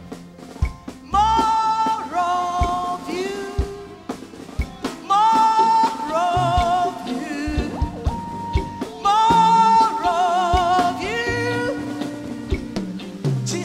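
A woman singing a gospel song into a microphone, with a live band and drums behind her. She sings three long phrases, beginning about one, five and nine seconds in, and holds notes with a wavering vibrato.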